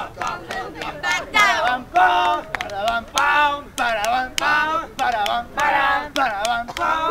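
A group of voices chanting and singing rhythmic nonsense syllables together, with sharp percussive beats keeping an even time.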